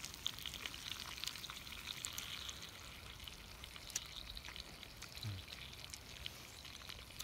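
Whole bluegill sizzling in a frying pan over hot coals: a steady crackling hiss full of small pops.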